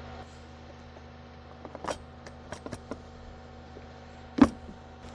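A few sharp metallic clinks and knocks, the loudest near the end, over a steady low engine hum.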